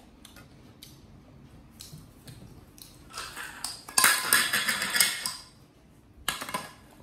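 Kitchen handling noise: a few light clicks, then a loud clattering, rattling stretch of about two seconds from around the middle, and a short burst of clatter near the end, like pots, dishes and utensils being handled.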